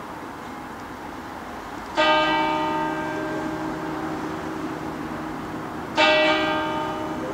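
Large church bell in the tower rings twice, about four seconds apart; each stroke starts suddenly and rings on with many overtones, fading slowly. A steady hum of city traffic runs underneath.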